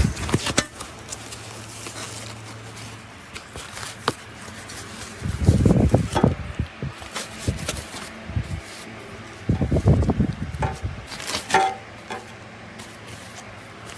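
Shower-kit parts and their packaging being handled: two spells of rustling and knocking, with sharp clicks from small parts being picked up and set down.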